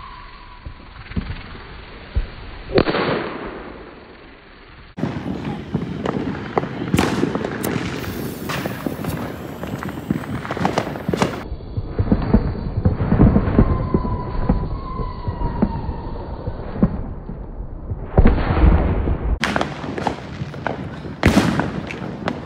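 Consumer fireworks going off in the street: a bang about three seconds in, then frequent pops, bangs and crackling, with a faint whistle from a rocket partway through.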